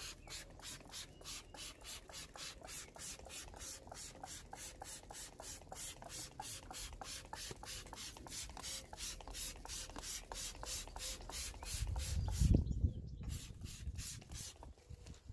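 Handheld trigger spray bottle squeezed over and over, about three short hissing squirts a second, misting fluid onto an alloy wheel. A brief low rumble comes near the end, after which the squirts thin out.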